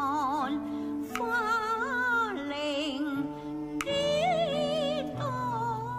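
Elderly woman singing Cantonese nanyin in a slow, ornamented line with a wide vibrato and notes that glide and are held, over steady low sustained accompaniment notes.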